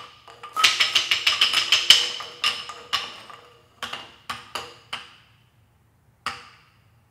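Wooden percussion sticks clacking with a short ringing pitch: a fast flurry of strikes that thins out to scattered single clacks, with one last clack near the end before it stops.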